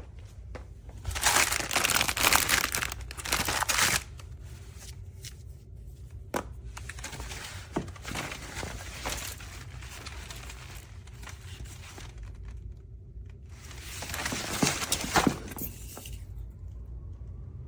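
Packaging being handled during unpacking: two loud spells of crinkling and tearing, one about a second in and one near the end, with scattered light clicks and rustles between them.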